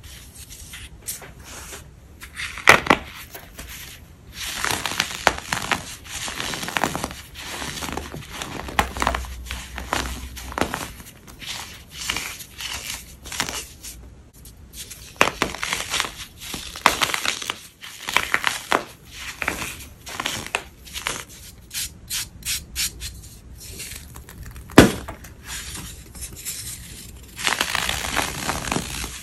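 Crumbly white chalky material being crunched and crumbled: a dense, irregular run of dry crackling crunches. A sharp crack comes about three seconds in and the loudest snap a few seconds before the end.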